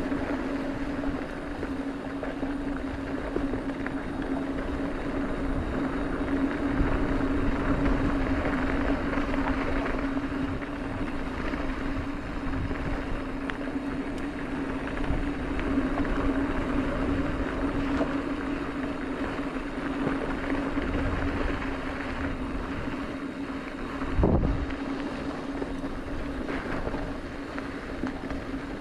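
Mountain bike rolling down a packed-dirt fire road: steady tyre and drivetrain noise with wind on the microphone and a constant low hum underneath. One heavy thump about 24 seconds in, a jolt over a bump.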